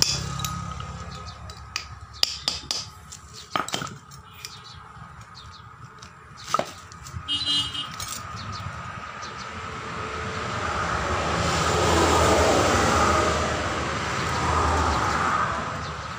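Metal clinks and knocks from a wrench and hand tools working on a steel bottle jack, scattered through the first half. From about halfway a broad rushing noise swells up, peaks, swells a second time and fades near the end; it is the loudest thing heard.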